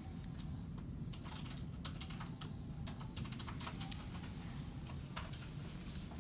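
Typing on a computer keyboard: quick, irregular key clicks over a steady low rumble of room noise.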